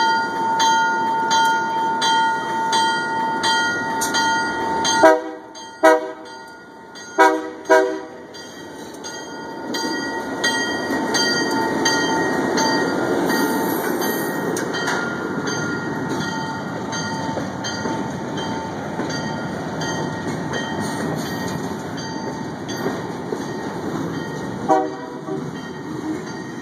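Air horn of a 1964 ALCO C424 diesel locomotive sounding four blasts about five seconds in, then the locomotive's engine rumbling louder as it pulls two covered hoppers past, with one more short horn toot near the end. A grade-crossing bell rings steadily.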